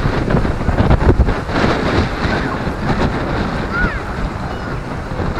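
Strong wind buffeting the microphone in gusts over the steady wash of sea waves breaking on the shore.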